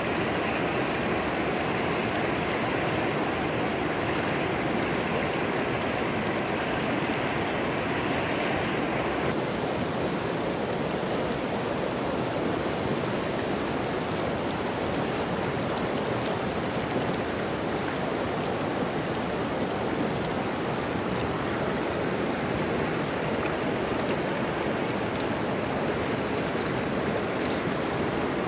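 Shallow river rushing steadily over rocks and small rapids, an even hiss of water with no break; its tone shifts slightly about nine seconds in.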